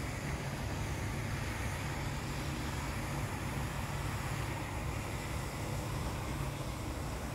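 Steady outdoor background noise: a low rumble under a soft hiss, with no distinct calls or knocks.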